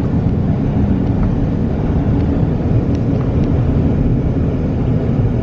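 Steady low rumble of a truck driving, heard from inside the cab, with a few faint ticks.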